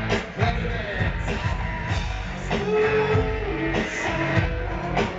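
Live rock band playing at full volume: distorted electric guitars, bass and a steady drum beat with a vocal line, recorded from the crowd in front of the stage.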